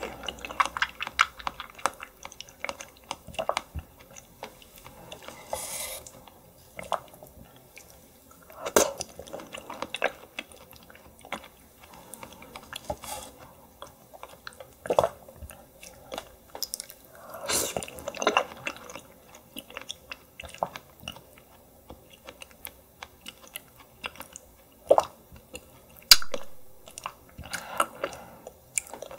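Close-miked chewing of raw yellow stingray: irregular wet clicks and crunches, with a louder bite or gulp every several seconds.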